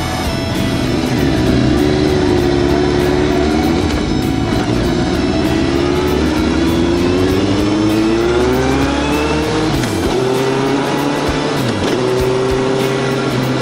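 Kawasaki ZRX1200 DAEG inline-four engine heard from the rider's seat under way, with wind rushing past. Its pitch climbs steadily through the middle, then falls away twice near the end.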